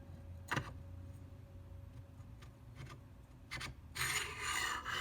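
AR-15 parts being handled on a workbench: a sharp metallic click, a couple of lighter knocks, then a rubbing, scraping sound about four seconds in as the parts are fitted during buffer and buffer spring installation.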